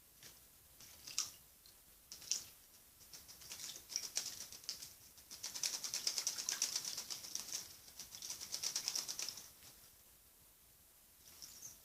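A hand-reared young blackbird moving about: a few separate light clicks, then several seconds of fast, dense clicking and rustling in the middle, and a short flurry near the end.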